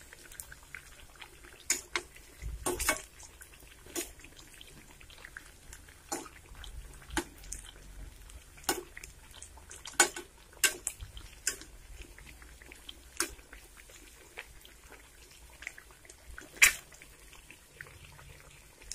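Egg bajjis deep-frying in hot oil in a steel kadai: a faint steady sizzle with irregular sharp crackles and pops from the oil.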